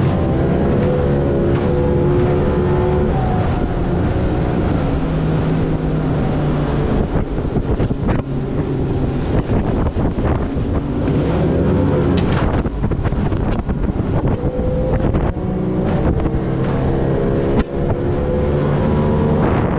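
Yamaha 70 hp two-stroke outboard running at speed, its pitch stepping and gliding up and down several times as the throttle changes. Wind buffets the microphone.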